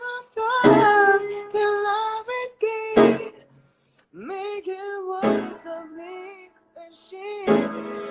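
Music with a singing voice: a high, wavering sung melody in phrases with short breaks, over accompaniment that strikes a strong chord about every two seconds.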